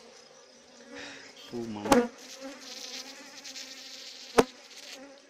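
Honeybees buzzing steadily around an exposed comb on a branch, with two sharp clicks, one about two seconds in and one a little before the end.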